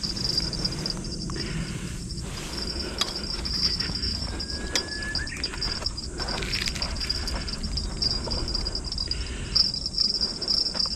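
Crickets or similar insects calling in a steady high trill that pauses now and then, over a continuous low rumble.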